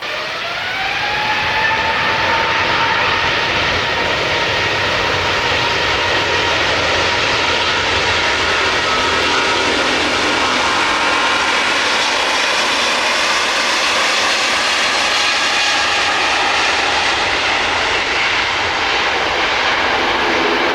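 Airbus A350's Rolls-Royce Trent XWB turbofan engines at takeoff thrust: a loud jet roar with whining tones that rise in pitch over the first second or two as the engines spool up, then hold steady.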